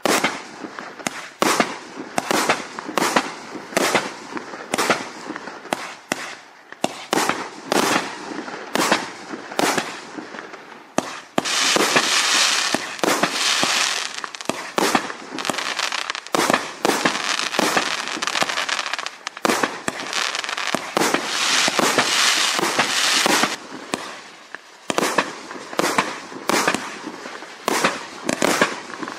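A 1.4G compound cake of four 25-shot boxes firing: a steady string of shots about two a second, each a launch and a break. Twice in the middle the breaks fill with dense crackling.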